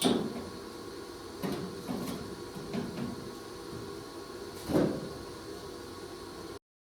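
A handful of separate knocks and clunks over a faint steady hum; the sound cuts off abruptly near the end.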